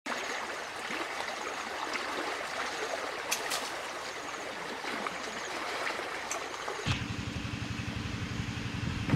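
Steady rushing of flowing water with a few faint clicks. About seven seconds in it cuts abruptly to a small engine running steadily with a low pulsing hum.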